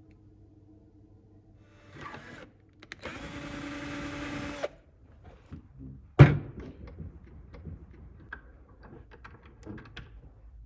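A small electric power tool runs steadily for about a second and a half, then stops abruptly. A sharp knock follows, the loudest sound, with scattered light clicks and taps of metal parts being handled after it.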